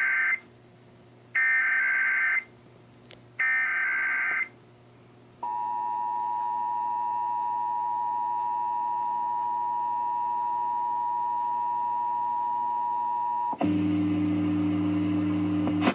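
Emergency Alert System Required Monthly Test played over a radio. It opens with three short bursts of screeching SAME header data, then the two-tone EAS attention signal (853 and 960 Hz) sounds steadily for about eight seconds. Near the end a low steady hum follows.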